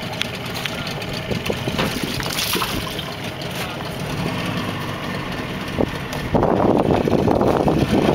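Suzuki 40 hp outboard motor idling with a steady low rumble, with scattered small knocks and splashes. About six seconds in, a louder rushing noise sets in and stays to the end.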